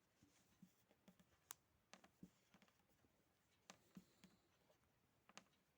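Faint, scattered clicks and scratches of stripped copper wire strands being twisted together by hand to splice two wires, otherwise near silence.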